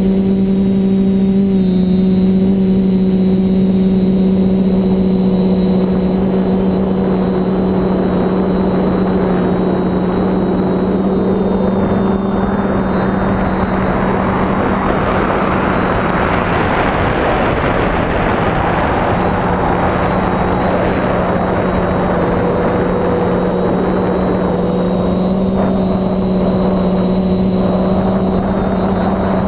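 Quadcopter's brushless motors and propellers running with a steady buzzing hum, heard close from the camera carried on the drone. A rushing noise swells through the middle and fades again toward the end.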